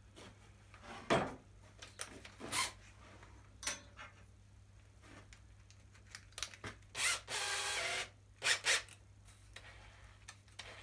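Hand tools and wood being handled at a workbench: scattered knocks and clicks, with a short run of a power drill about seven seconds in, drilling and countersinking screw holes for window hinges.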